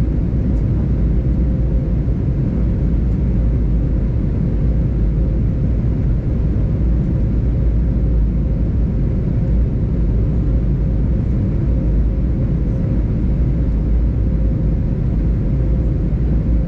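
Steady cabin noise of an Airbus A320neo in flight: a low, even rumble of engines and airflow with a faint steady hum over it.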